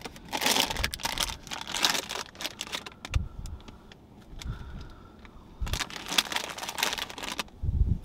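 Two bursts of crinkling, rustling noise, each lasting about two seconds and full of small clicks, with a few dull thumps in between.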